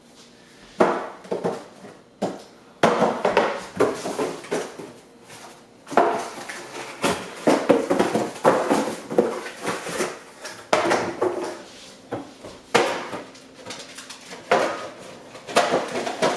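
Dishes, pots and cutlery clattering as a kitchen is rummaged through, with irregular knocks and clinks throughout.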